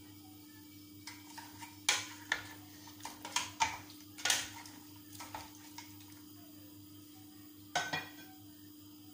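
A wooden spoon stirring pieces of goat meat in a stainless steel pot, knocking and scraping against the pot's side in a run of clatters, then one more knock near the end.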